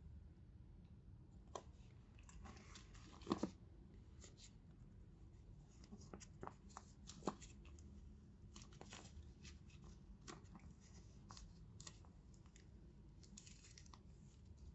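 Faint handling sounds of a handbag and its packaging being unboxed: scattered light clicks and taps with bits of rustling. The loudest is a brief rustle about three seconds in.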